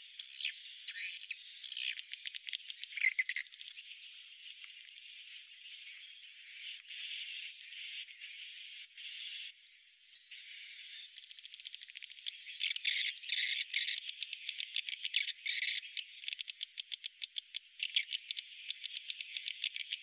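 Swiftlet roosting call: a dense chorus of high chirps, rapid clicking and buzzing trills from swiftlets, with a wavering whistled trill from about 4 to 11 seconds in. It is the kind of call played in swiftlet houses to draw the birds in to roost.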